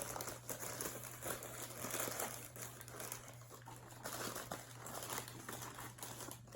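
Paper wrapper of a bacon cheeseburger being unwrapped, with an irregular crinkling and crackling that tapers off near the end.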